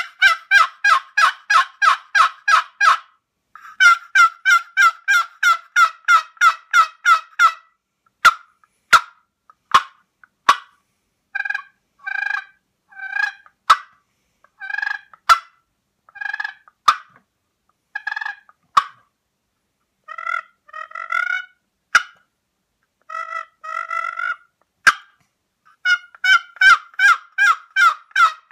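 Turkey short box call of Alaskan cedar with a black walnut lid, its lid scraped across the box's sides to make turkey calls. It opens with fast runs of notes, moves to slower, spaced yelps and clucks in ones and twos, and ends with another fast run.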